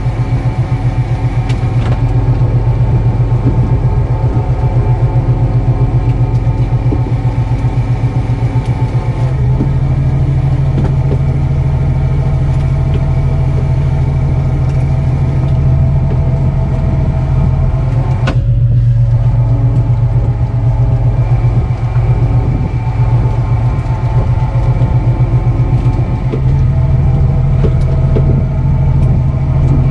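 Fishing boat's engine running steadily: a loud low drone with a fast, even pulse, shifting slightly in pitch and level now and then.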